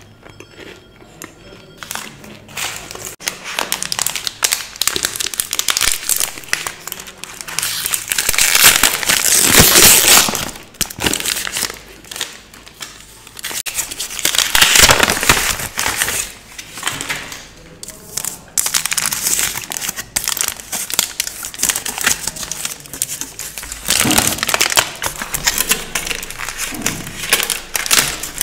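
A chocolate bar's paper wrapper and inner foil being torn and crinkled open by hand: a run of crackling that swells loudest twice, about a third of the way in and again around halfway.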